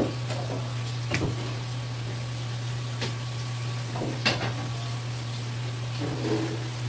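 Steady low hum under a few sharp clicks and taps, four in all with the loudest about four seconds in. The taps come from a knife, plate and cutting board being handled as sashimi slices are laid out, with a soft handling sound near the end.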